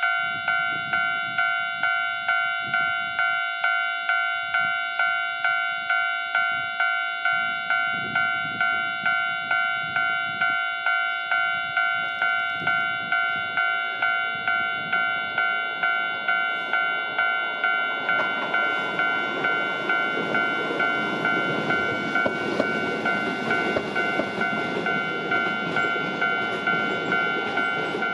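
Level-crossing warning bell ringing steadily at just under two strokes a second as a Hankai Tramway Mo161-type tram, built in 1928, approaches. From about two-thirds of the way through, the tram's wheels and motors grow loud as it runs past on the curve, and this runs alongside the bell.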